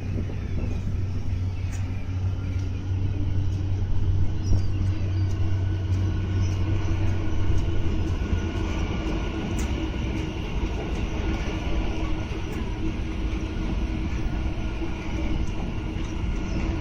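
Electric metro train running on its rails: a continuous rolling rumble with a low hum that fades after about six seconds and a steady whine.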